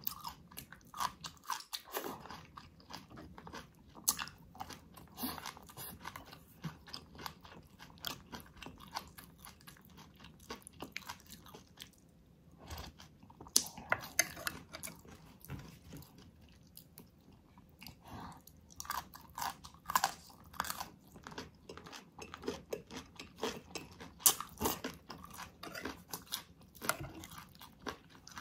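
Close-miked chewing and crunching of food: bites of crisp green onion stalk and chewing of a saucy spicy ox-feet dish, with many irregular crisp crunches and mouth clicks.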